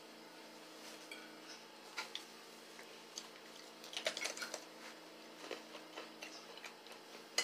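Faint, scattered clicks and taps of people eating with forks from plates, bunched about four seconds in, over a low steady hum.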